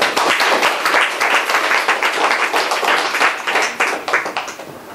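Audience applauding: a dense patter of many hands clapping that thins out and fades near the end.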